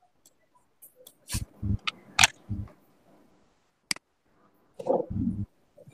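Computer mouse clicking several times in separate single clicks, some with a dull knock, and a short cluster of low thuds about five seconds in.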